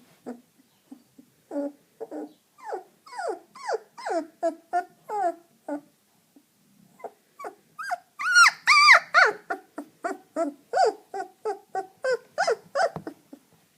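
Young puppy crying in a rapid string of short whimpering yips, each falling in pitch, about two or three a second. After a brief pause about six seconds in, it breaks into louder, higher squeals, then goes back to the yipping until it stops near the end.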